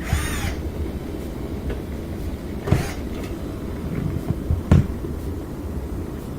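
Frigidaire dishwasher's circulation motor running, a steady low rumble of water being pushed around the tub, strong now that the filter and impeller are clear. A few knocks come over it, about a second or two apart.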